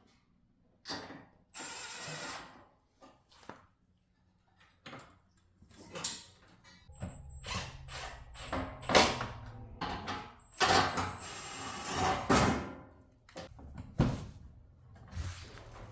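Tool and panel-handling noises while a car's front fender is fitted: irregular clanks, clicks and knocks, with several short whirring bursts of a power tool. The sharpest knocks come about nine and fourteen seconds in.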